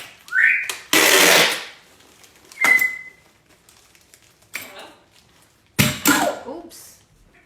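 Pet parrot vocalizing in separate short sounds: a quick rising whistle, a loud rasping hiss about a second in, a brief high whistle near three seconds, and a harsher pitched call around six seconds.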